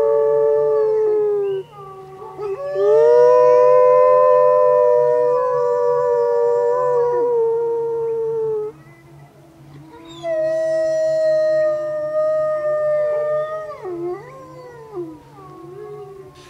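A pack of wolves chorus-howling, several voices holding long notes at different pitches at once, set off by a car alarm. The chorus breaks off briefly, swells again, pauses about two-thirds of the way through, then starts a new round that turns wavering and fades near the end.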